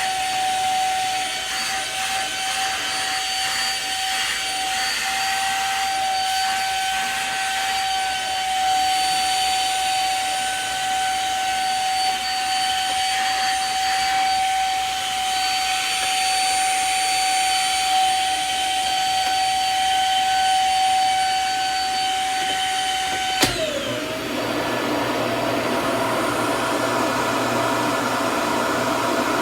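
Samsung CycloneForce upright vacuum running with a steady high whine. About 23 seconds in there is a click, the whine falls away, and a rougher rushing sound carries on.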